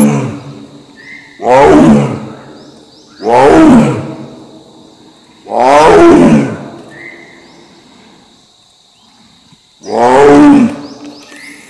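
Bengal tiger roaring four times, each roar about a second long and falling in pitch, two to four seconds apart with a longer gap before the last.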